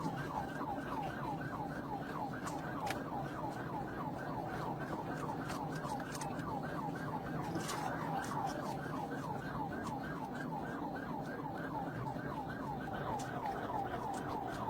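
Police car siren in its fast yelp mode, a rapid warble of about four sweeps a second, over steady engine and road noise.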